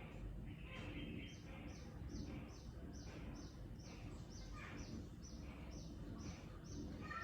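A bird calling in a regular series of short, high, falling chirps, about two to three a second, over a steady low background rumble.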